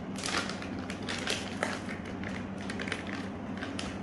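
Plastic pouch of modelling clay crinkling and rustling as it is handled and squeezed: a quick, irregular run of crackles, busiest in the first two seconds, over a steady low hum.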